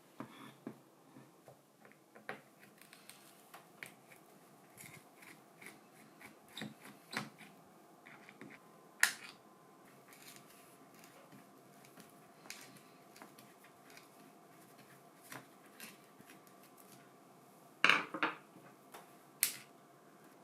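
Scattered small clicks and knocks of an old plastic cordless drill and hand tools being handled, with a sharp knock about nine seconds in and a quick cluster of louder knocks near the end.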